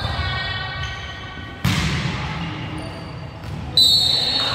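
Volleyball game sounds echoing in a large indoor hall, with a sudden loud hit about a second and a half in that rings out in the hall, and another sharp jump in level near the end.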